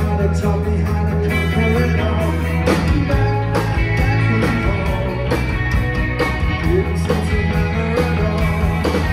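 Live rock band playing: electric guitars and drums with a steady beat, heard from the audience.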